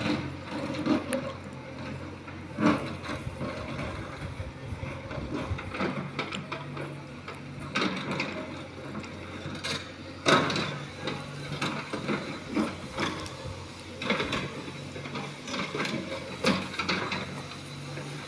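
JCB backhoe loader's diesel engine running steadily, with irregular clanks and knocks from the digging bucket and arm; the loudest knock comes about ten seconds in.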